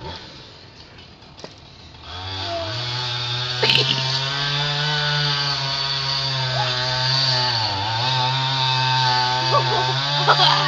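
Husqvarna two-stroke chainsaw with an 18-inch bar comes in about two seconds in and runs at high revs, its pitch sagging briefly near the end as it loads in the cut while felling a tree.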